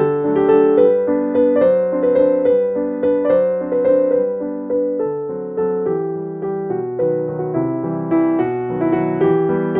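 Background piano music, a gentle melody of notes struck at an even pace.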